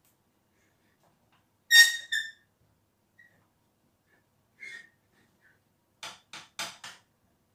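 Wooden spoon knocking against a stainless steel saucepan as stiff cassava-flour fufu dough is stirred and worked. A loud ringing clank about two seconds in is followed by a softer one, then another knock near the middle and a quick run of four knocks near the end.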